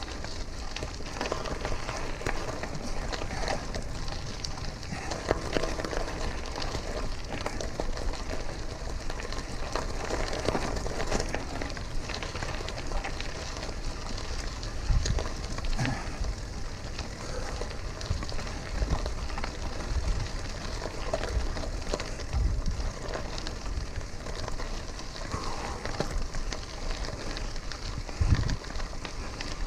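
Bicycle on the move: a steady crackle and hiss of the tyres on the road, with a few low thumps about halfway through and again near the end.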